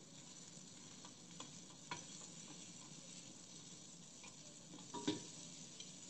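Chicken satay skewers sizzling faintly on a nonstick grill pan, with a wooden spatula scraping and knocking against the pan as the pieces are pressed and turned. Several short knocks, the loudest about five seconds in.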